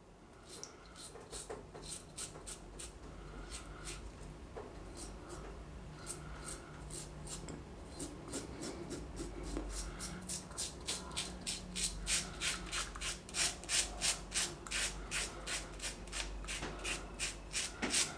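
Blackland Osprey adjustable double-edge safety razor with a Gillette Rubie blade cutting stubble through shaving lather, on setting 7. Short strokes, sparse at first, then coming quickly, about three a second, in the second half.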